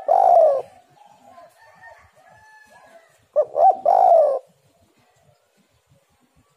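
Spotted dove cooing: two call phrases about three and a half seconds apart, each of short coos ending in a longer falling coo, with fainter calls between them.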